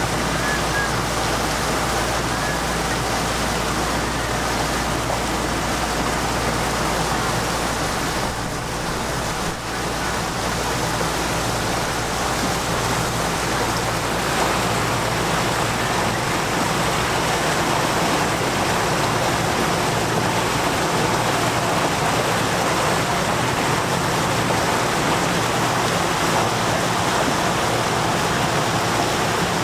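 Resort launch boat under way: a steady rush of water along the hull over the low, even hum of the boat's engine.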